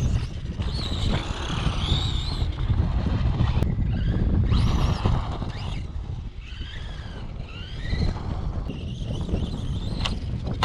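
Brushless electric motor of a Redcat Volcano EPX RC monster truck whining, its pitch rising and falling several times as it speeds up and slows down. Wind rumbles on the microphone underneath.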